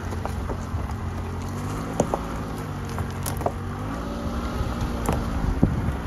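Car tyres rolling slowly over loose gravel and rocks, with scattered sharp pops and clicks of stones under the tread, over the low steady hum of the car's engine.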